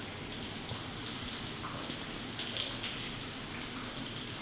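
Water falling down the 512-foot Redbrook ventilation shaft and pattering like rain onto the rock and tunnel floor at its base: a steady patter with scattered drips. It is water ingress from the hills above, seeping through the rock into the tunnel.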